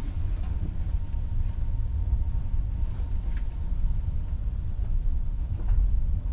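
Sea rushing along a cruise ship's hull, heard through a cabin porthole as a steady low rumble, with a few faint clicks.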